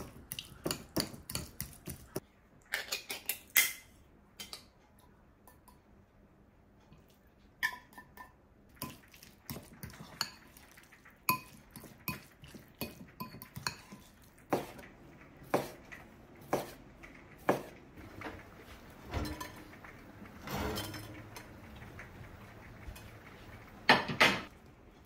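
Metal spoon clinking and scraping against a ceramic bowl as chopped boiled egg is mixed, in irregular light taps, with a louder double knock near the end.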